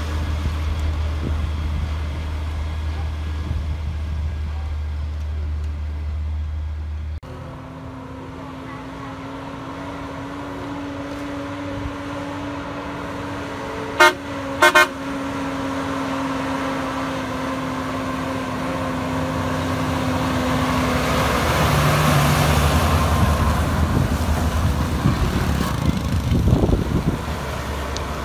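Truck diesel engines running on a steep hairpin bend, with two short horn blasts about halfway through, the warning toot of a tanker truck coming round the blind curve. Near the end a heavy tanker truck's engine and tyres grow louder as it works through the bend.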